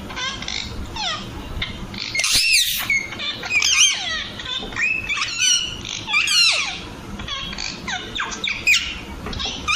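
Baby Alexandrine parakeet calling: a run of high, repeated calls, each sliding up and down in pitch, coming about one every half second to a second.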